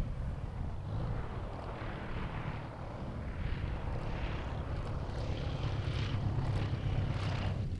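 Small aerobatic biplane's piston engine and propeller on landing approach, a steady low drone that grows louder in the second half as the plane comes down low over the runway.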